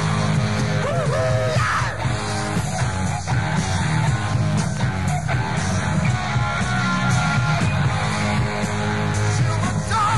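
Live hard rock band playing in a concert recording: distorted electric guitars over bass and drums, with the steady, dense sound of a full band.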